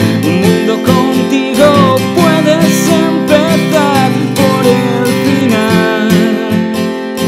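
Acoustic pop song: strummed acoustic guitar chords with a gliding, wavering melody line above them and no sung words.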